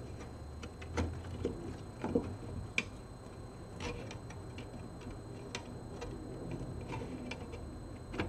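Irregular light clicks and taps of a power supply's metal casing being handled and pried at while its stuck cover is worked loose, over a low steady hum.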